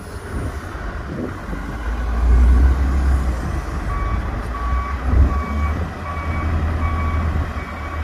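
Wheel loader working with its diesel engine rumbling. From about halfway a reversing alarm beeps steadily, about one and a half beeps a second.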